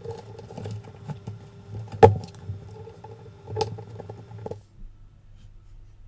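Handling noise: light taps and clicks from fingers touching the motherboard and its capacitors, two of them sharper, about two and three and a half seconds in, over a faint steady hum that cuts off suddenly a little past the middle.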